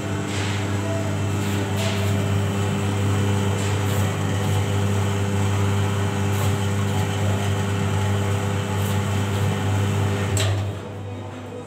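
Rotary washout machine for photopolymer plates running, its motor and turning steel drum giving a steady low electric hum. The hum stops suddenly near the end.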